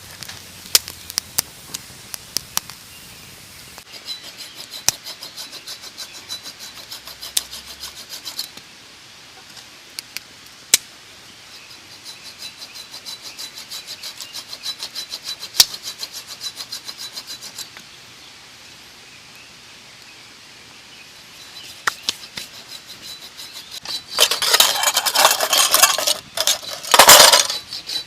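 Wood fire crackling and popping in a fire pit, with sharp pops and stretches of fast fine crackle. Near the end comes a few seconds of loud rubbing and scraping.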